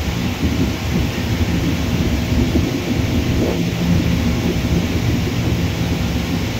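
Jet airliner engines heard across the airfield: a steady low rumble with a hissing roar above it.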